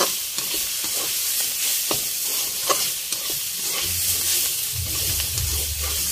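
Shredded cabbage sizzling in oil in a metal kadai while a metal spatula stirs and scrapes it, with scattered clicks of the spatula against the pan; the cabbage is being stir-fried dry. A low rumble joins about four seconds in.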